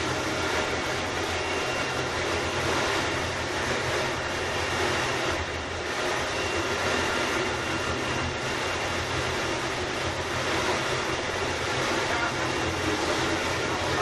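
A tour boat's engine running steadily under way, a low drone mixed with the hiss of the churning wake and wind across the open stern deck.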